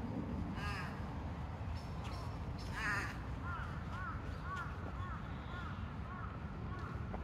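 Crow cawing: a harsh call about a second in, a louder one about three seconds in, then a run of short repeated calls about two a second. A steady low rumble runs underneath.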